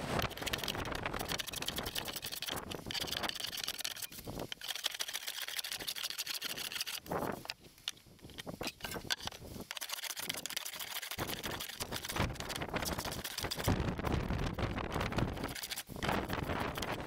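Wind rumbling on the microphone, with the scrape of a hand plane shaving a cherry board near the end.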